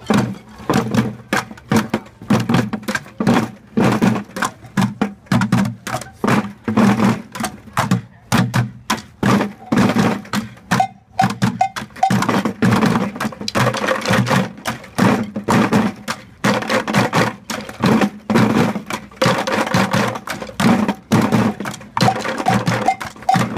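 A group of children drumming with sticks on orange plastic five-gallon buckets, playing a fast, steady rhythm of hollow thuds and sharper clicks.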